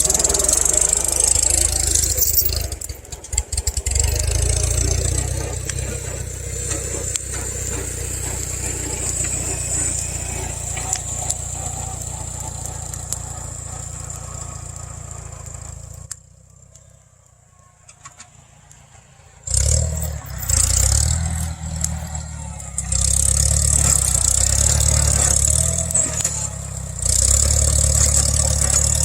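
1975 Farmall 140 tractor's four-cylinder gasoline engine running under load as it works a stump. The engine sound eases off after a few seconds and nearly drops out for about three seconds past the middle. It then comes back louder, rising and falling as the engine is worked.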